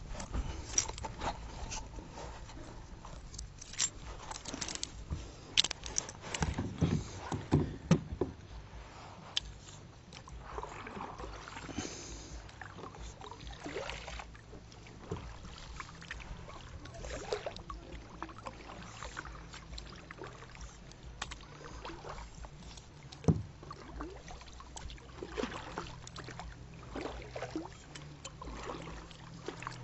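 Kayak paddling: the paddle blades dip and splash with water dripping off them, and now and then the paddle knocks sharply against the plastic hull.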